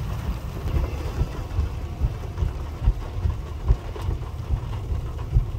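Heavy rain falling steadily, with wind buffeting the microphone in uneven gusts that give a low rumble and a few sharper thumps.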